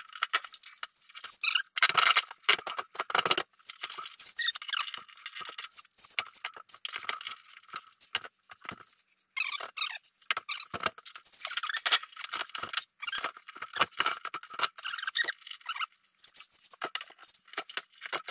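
Irregular high-pitched squeaks, scrapes and small knocks as an integrated under-counter fridge is pushed back into its kitchen cabinet housing and handled.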